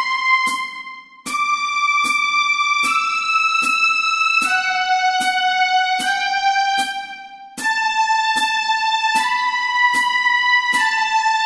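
Single violin notes of a practice exercise in the high register, each held steady for about a second and a half, with two brief rests, over a metronome clicking about twice a second.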